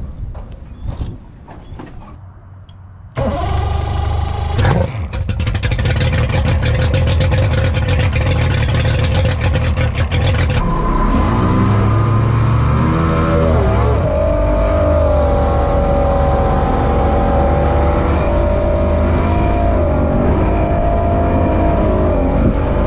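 Outboard motor of a small speedboat: a few light knocks, then engine sound comes in suddenly about three seconds in with a brief rev. From about ten seconds in it runs steadily under way, its pitch rising and falling with the throttle.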